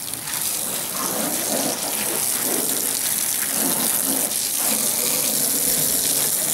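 Water running steadily from a garden hose and splashing onto wet paving during a hand car wash, with a long-handled wash brush scrubbing the car's front bumper.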